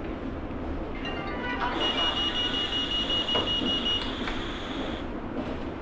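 Handheld breath alcohol analyser sounding a few short beeps, then a steady high electronic tone for about two seconds while it is blown into: a pre-flight breathalyser test.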